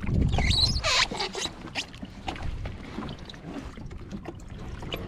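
Water splashing and dripping as a hand reaches into a floating Baitsharks live-bait tube. The splashing is loudest in the first second or so, followed by scattered light knocks.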